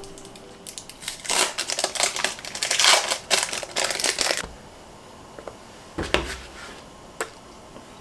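Thin plastic packaging crinkling and rustling as it is handled, a dense crackle lasting about three seconds, then a soft thump about six seconds in and a single sharp click near the end.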